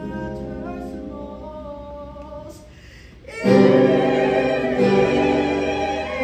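An ensemble of voices singing held chords in harmony. It is soft at first, then about three and a half seconds in it swells suddenly into a much louder, fuller chorus.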